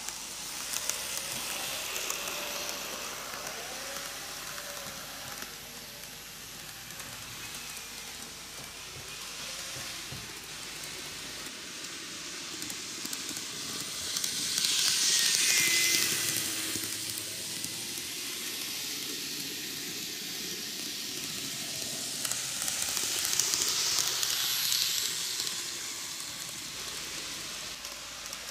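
N gauge model trains running on TOMIX plastic cant track: a steady hissing rattle of small wheels and motors. It swells twice, about halfway through and again later on, as trains come round close to the microphone.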